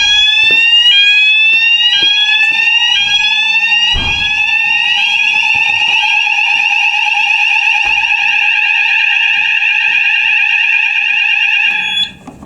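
Building fire alarm sounders going off during a call point test: rising whoops about once a second give way, about six seconds in, to a steady, fast-warbling high tone, with a lower steady tone underneath. The alarm cuts off abruptly shortly before the end as the system is silenced.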